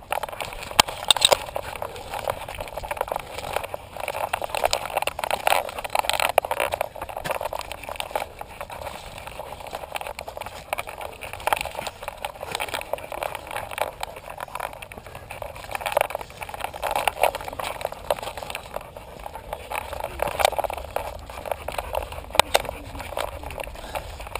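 Handling noise from a camera strapped to a dog's harness as the dog climbs a sandy trail: irregular scraping, rubbing and knocking of the mount, with the dog's paws on loose dirt.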